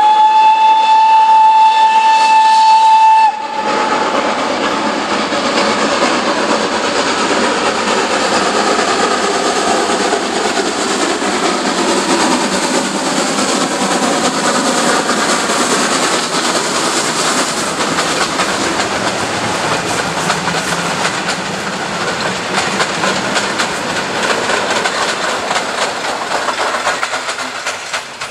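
A Ty2 steam locomotive sounds its steam whistle in one steady blast of about three seconds that cuts off sharply. Then the locomotive and its coaches run past with steady noise, which fades near the end.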